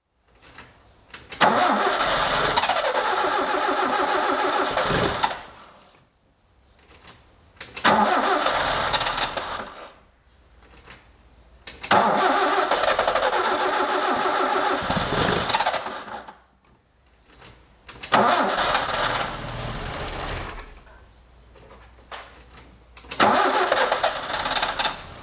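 Alfa Romeo Giulia Super four-cylinder engine being started over and over: five separate bursts of a few seconds each. Each begins suddenly and dies away again, on an engine that has been running badly and that the owner suspects has an ignition fault.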